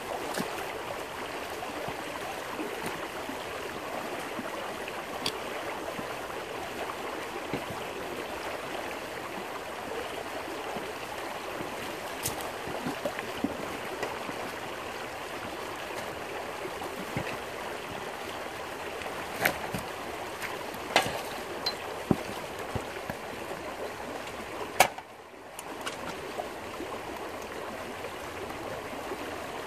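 Shallow stream water rushing steadily through a gold-panning sluice box set in the current, with a few short, sharp knocks scattered through.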